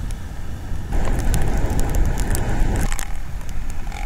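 Motorcycle engines running with a steady low rumble and scattered crackling clicks. A louder rush of noise swells from about one second in and drops off just before three seconds.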